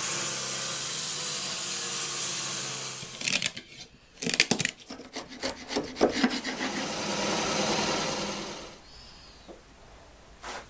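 A table saw cutting slots into a small oak block, a steady hiss of the blade in the wood for about three seconds. Then come sharp knocks and scraping strokes as a chisel pares out the waste between the cuts, and another steady stretch of cutting noise that stops about two seconds before the end.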